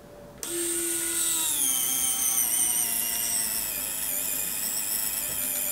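Small electric winch motor on a 1:10 scale RC rock crawler starts about half a second in with a high whine. About a second later the pitch drops as the line tightens and takes the weight of a full soda bottle, then it runs on steadily while hauling the bottle up.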